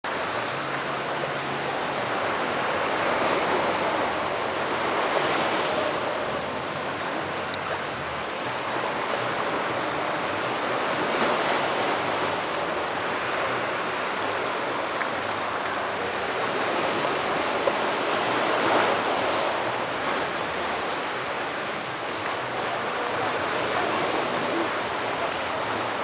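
Ocean waves washing onto the beach: a steady rush of surf that swells and eases every few seconds.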